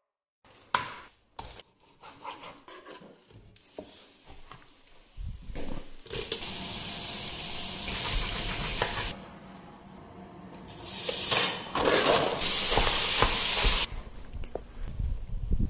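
Food frying and sizzling in a stainless steel pot while being stirred with a spoon, in two stretches of steady hiss, the second louder. A few short knocks come near the start.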